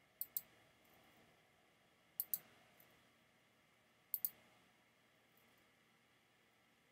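Three pairs of sharp clicks from working a computer's controls, one pair near the start, one about two seconds in and one about four seconds in, then only faint room tone.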